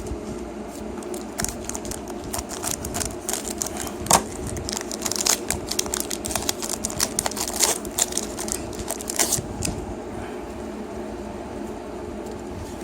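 Pokémon booster pack foil wrapper crinkling and tearing as it is opened, with the cards inside being handled: irregular crackles and clicks, with one sharp snap about four seconds in, over a steady low hum.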